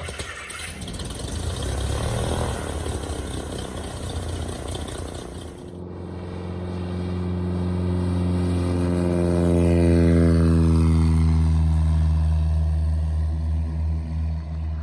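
Light aircraft's piston engine running. A rough, noisy stretch for the first few seconds, then from about six seconds in a steady droning tone, with a fainter whine above it that slides down in pitch.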